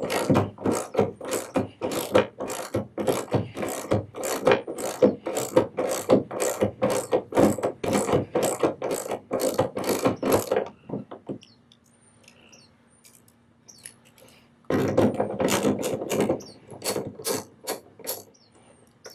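Socket ratchet clicking as a bolt is turned with quick back-and-forth swings. The clicking runs for about eleven seconds, stops, then comes back for a shorter run a few seconds later.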